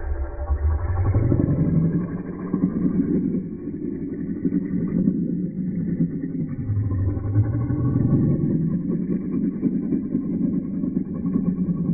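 A continuous engine-like rumble whose pitch rises and falls several times.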